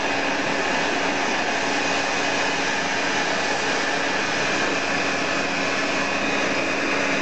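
Hair dryer running steadily: an even rush of blown air with a faint constant hum in it, unchanged throughout.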